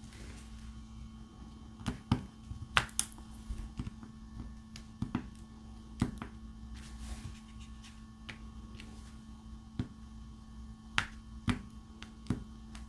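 Small sharp clicks and taps, about a dozen at irregular intervals, as a diamond painting drill pen picks up resin drills and presses them onto the sticky canvas. A faint steady hum lies underneath.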